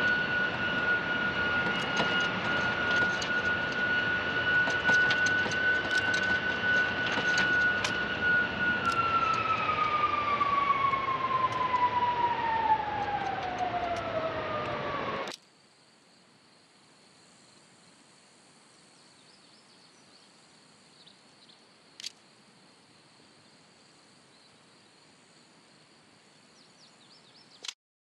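Jet engine running with a steady high whine over a rush of noise, then spooling down, the whine falling in pitch until it cuts off suddenly about halfway through. After that only a faint hiss remains, with two small clicks.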